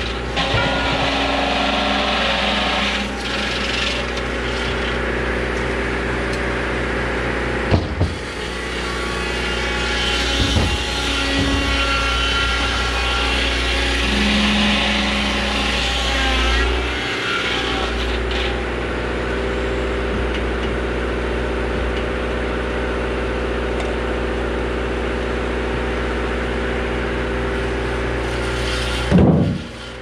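Two-blade portable sawmill (one vertical, one horizontal blade) running steadily on its engine while the blades cut through a cottonwood log, with a sharp knock about eight seconds in and a louder thump just before the end.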